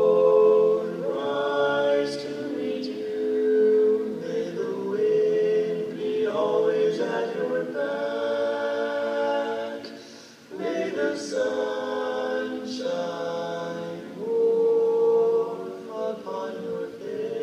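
Male vocal quartet singing a cappella in four-part harmony, holding long chords, with a short break between phrases about ten seconds in.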